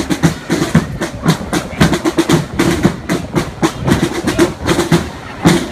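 Drums beating a quick, steady rhythm of sharp strikes.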